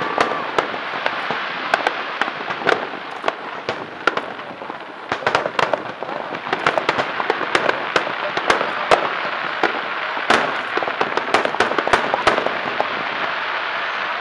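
Starmine fireworks, shells fired from the water, bursting in a rapid, irregular run of sharp bangs over a continuous crackle. The bangs stop near the end, leaving only the crackling hiss.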